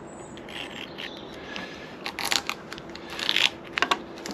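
Scraping and crackling as a covering is pried and peeled off a wooden mast, in short ragged bursts about two seconds in and again a little after three seconds.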